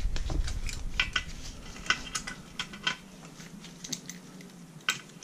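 Scattered light metallic clicks and clinks of hand tools: a socket and pliers being set onto the drive sprocket nut of an 80cc bicycle engine.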